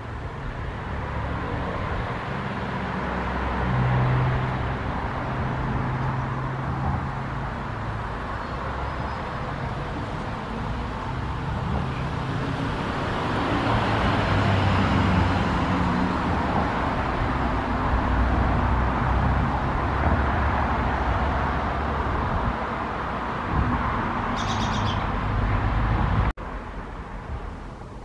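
Steady background rumble of road traffic, with engine hum rising and falling, and a short bird chirp near the end. About two seconds before the end the sound drops suddenly to a quieter hum.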